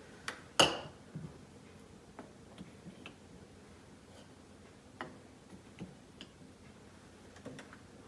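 Small wooden number tiles being handled and set onto a wooden calendar board: one sharp click about half a second in, then scattered lighter taps and clicks.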